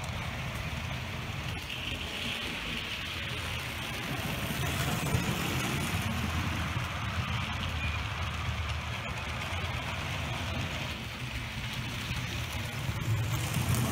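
Model train running on the track: a Bachmann 2-8-2 Mikado with a can motor drive pulling passenger cars, giving a steady rumble of wheels on rails. It grows louder about halfway through as the cars pass close.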